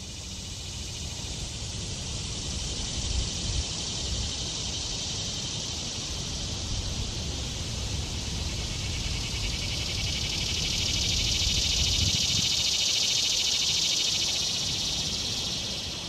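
Male cicada singing: a steady, high, buzzing drone made by flexing its ribbed tymbals, swelling louder in the second half.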